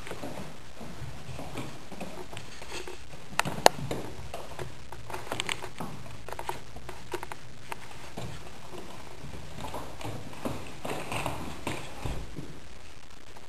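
Rabbits hopping on a hard floor: scattered light taps and clicks of their paws and claws, with one sharp click about three and a half seconds in.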